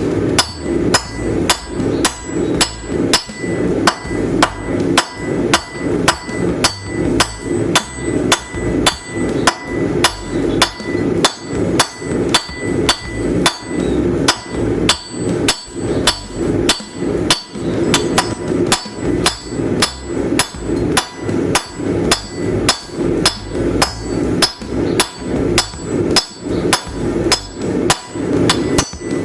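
Hand hammer forging a hot railroad spike on an anvil: a steady rhythm of blows, about two a second, each with a ringing metallic tone.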